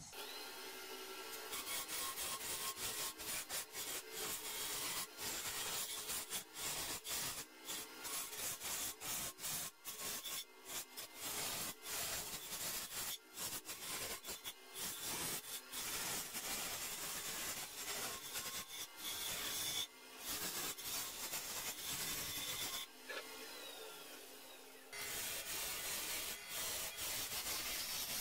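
Hand-held turning tools cutting the outside of a spinning segmented pear-wood vase on a lathe: a continual scraping hiss of shavings peeling off, surging and easing as the tool is worked along, with a quieter stretch about 23 seconds in.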